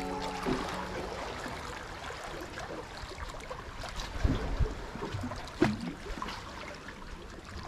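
Sea water lapping and sloshing against the rocks of a jetty, a steady wash of noise, with a couple of short low bumps about four and a half and five and a half seconds in.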